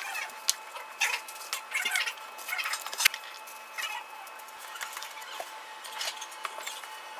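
Sheets of 3-inch hexagon mosaic tile being handled and pressed onto a backsplash: irregular light clicks, taps and scraping of tile against tile and the wall, with a sharper click about three seconds in.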